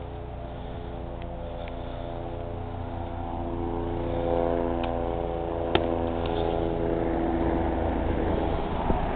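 A motor engine running steadily at an even pitch, growing gradually louder. A sharp click sounds about six seconds in.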